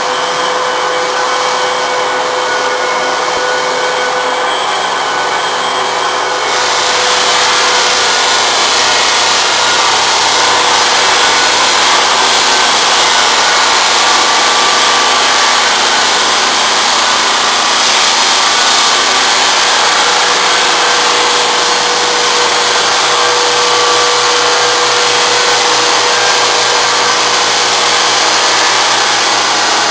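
Floor sander running steadily while sanding oak flooring, getting louder about six and a half seconds in.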